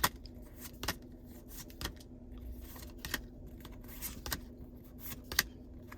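Pokémon trading cards being flipped through by hand: a sharp card snap roughly once a second as each card is slid to the back of the stack, over a faint steady hum.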